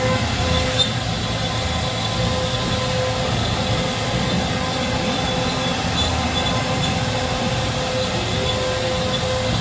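CNC router spindle running steadily while carving wood: a constant high whine over a low, rough cutting rumble.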